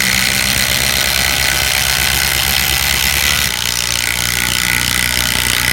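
Milwaukee M12 Fuel cordless impact driver hammering a 5.5-inch LedgerLok structural screw into a treated 6x6 timber, under heavy load. The sound changes about three and a half seconds in.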